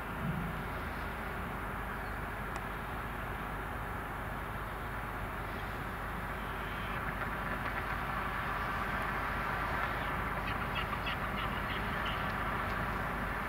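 Steady drone of a large car ferry's engines approaching across the water, growing a little louder partway through. Near the end comes a quick series of gull calls.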